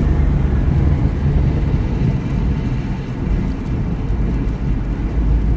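Steady low road and engine rumble heard inside a car cruising at freeway speed.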